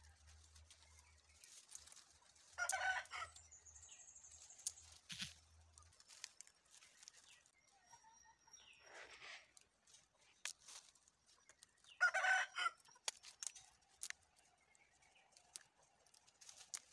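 A chicken calls twice, loudly and briefly, about ten seconds apart, with a fainter call between. Light clicks and rustling come from the dried coffee cherries and twigs being picked off the bush.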